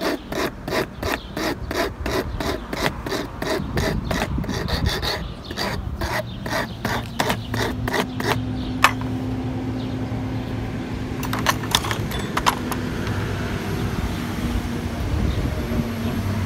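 Hand file rasping back and forth on the small metal shaft of a replacement door-lock actuator motor, about four strokes a second, taking a little off so the gear will press on. The filing stops about six seconds in, followed by a few light clicks over a low steady hum.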